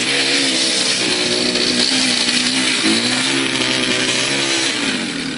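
Motorcycle engine held at high revs as the bike spins its rear wheel in a smoky burnout on sand. The pitch dips briefly and climbs again a few times, over a steady hiss.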